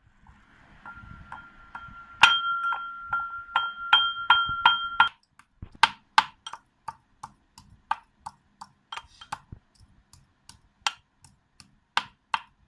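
Ginger being pounded in a mortar with a pestle: quick, steady clinking strikes, about three a second, that ring out loudly from about two seconds in, then thin to slower, scattered strikes for the rest of the time.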